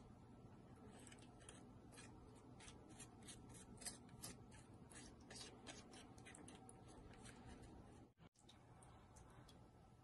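Faint, quick scraping ticks, about three a second, of a tiny wooden spoon working crumbs against a miniature metal baking tray.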